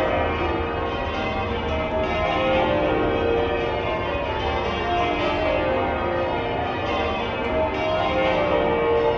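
Church bells being rung in changes: a continuous peal of many overlapping bell tones.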